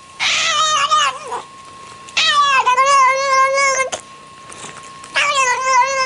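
A cat yowling in three long, wavering calls, each about a second and a half, with short pauses between them.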